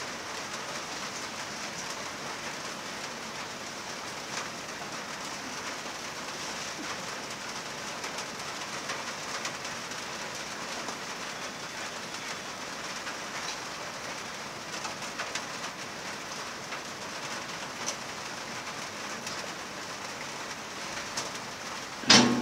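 Heavy rain falling outside, a steady hiss with a few faint ticks in it. A sharp knock near the end.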